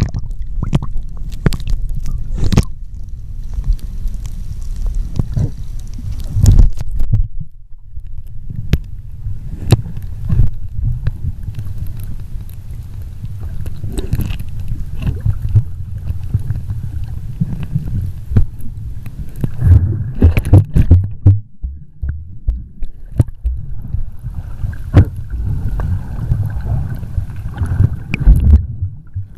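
Muffled underwater rumble and gurgling of moving water, as heard by a camera held under the sea surface, with frequent knocks and clicks throughout.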